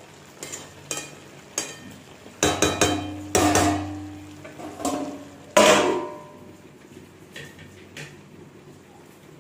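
Metal spatula scraping and knocking against a metal kadai as small potatoes in masala are stirred, with several ringing clanks. About five and a half seconds in, a metal lid is set down on the pan with a loud ringing clang.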